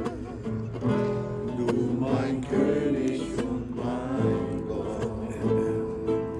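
Voices singing a slow worship song to strummed acoustic guitar.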